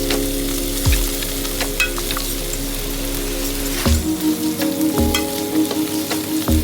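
Food sizzling and frying in a pan, with a steady crackling hiss, under background music of held notes that change about four seconds in.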